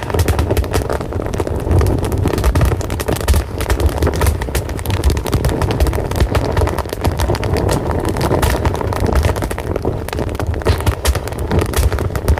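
Wood fire burning: a steady low rumble of flames under frequent sharp crackles and pops.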